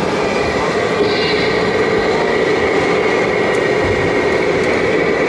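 Electric drive of a radio-controlled model construction vehicle whining steadily, with a held high tone over a grinding, noisy running sound.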